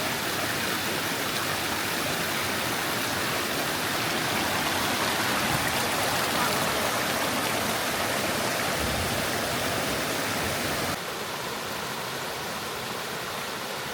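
Steady rush of a flowing creek, its level dropping a step about eleven seconds in.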